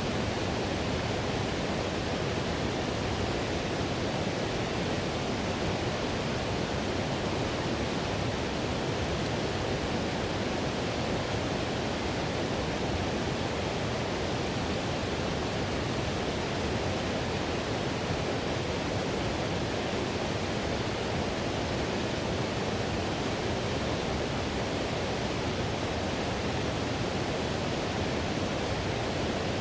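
Whitewater river rushing: a steady, unbroken wash of water noise.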